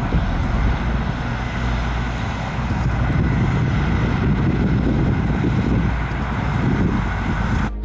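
Case IH Axial-Flow 2388 combine harvester running under load while cutting rye, a steady, dense machine rumble of engine and threshing. It cuts off abruptly near the end.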